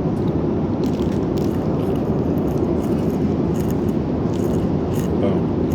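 Steady, even rumble of a jet airliner's cabin in flight, with a few light rustles and scrapes of small items close by.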